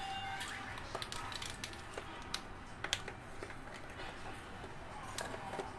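Scattered, irregular light clicks and taps of kitchen utensils being handled.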